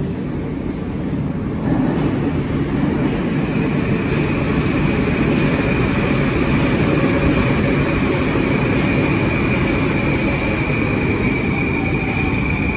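Moskva-2020 metro train pulling into the station and slowing along the platform: a dense rush of wheel and rail noise swells about two seconds in, with a steady high whine over it.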